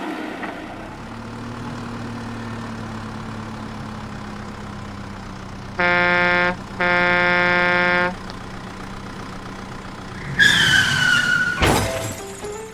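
Cartoon vehicle sound effects: a steady low engine hum with a truck horn honking twice, a short blast then a longer one. Near the end a brief high tone slides slightly downward, cut off by a quick swish.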